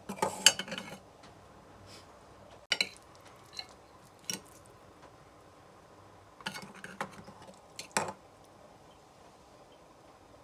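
Metal cutlery clinking and scraping against a plate while an omelette is cut with a knife and spoon. A busy cluster of clinks comes in the first second, then a few single clinks, then another cluster about six to eight seconds in.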